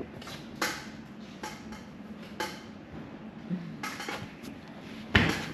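Metal clinks and taps of hand tools and parts being handled, a string of separate light strikes, with a louder, heavier knock about five seconds in.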